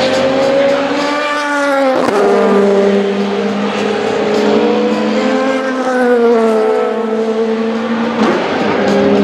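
LMGT3 race car engines, fitted with 100 dB-limited mufflers, running loud on track. The engine note climbs and then drops sharply about two seconds in, swells and falls again midway, and changes abruptly near the end.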